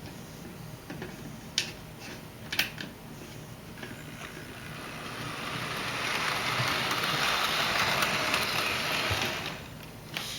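Hornby Tornado OO-gauge model train running on its track. Two sharp clicks come in the first few seconds, then the whirr and rattle of the small motor and wheels on the rails grows louder as the train comes close, holds for a few seconds, and fades near the end.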